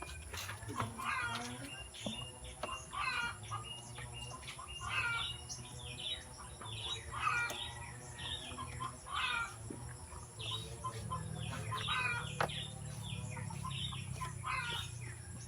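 Birds chirping in short repeated calls all through, with chickens among them, over a steady low hum.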